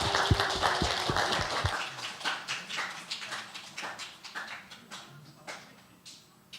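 Audience applause fading out, thinning to a few scattered claps near the end.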